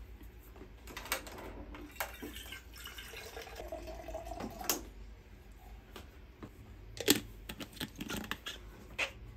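A metal water bottle being handled at a water dispenser: sharp clicks and knocks of its cap and body, and a short stretch of water pouring into it from the dispenser's tap about halfway through. The loudest knock comes about seven seconds in.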